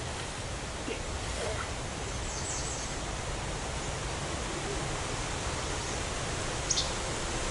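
Steady rushing outdoor background noise, with a few faint, short, high chirps about two and a half seconds in and again near the end.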